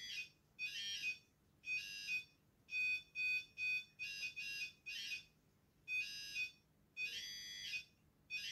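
Tracker PI-2 pulse induction metal detector giving a high beep each time a small screwdriver passes over its coil, signalling metal. There are about a dozen short beeps of uneven length, some coming in quick runs.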